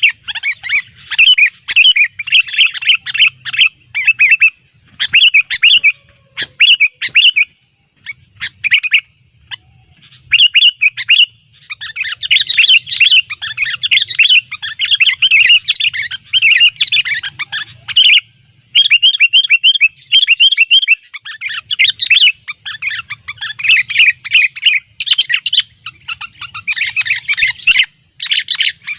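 Sooty-headed bulbuls (kutilang) singing and chattering in rapid, loud bursts of bubbly notes, the territorial calling used to lure rivals. There are short pauses at first, then near-continuous song.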